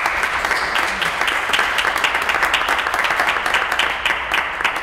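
Audience applauding, a dense, steady clapping that starts to thin only near the end.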